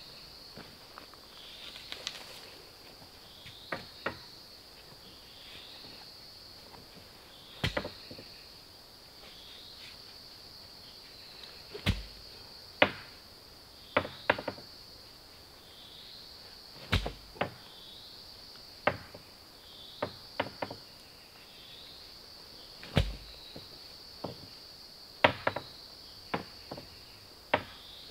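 Irregular sharp knocks and heavier thuds, every one to three seconds, as a long wooden pole is jabbed into the ground to dig. A steady high insect drone runs underneath.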